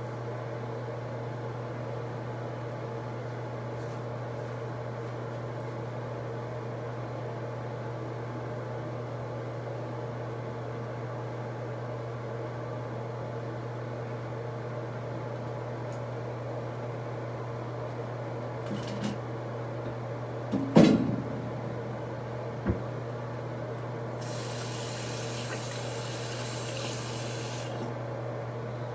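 Steady low mechanical hum of room background noise. A sharp knock comes about two-thirds of the way in, with a lighter one shortly after, and then a steady hiss lasting about four seconds near the end.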